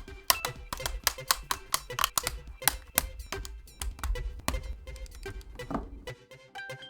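Typing on a mechanical keyboard with Gateron Yellow linear switches and PBT keycaps: a fast, uneven run of keystroke clacks over background music. The typing stops about six seconds in.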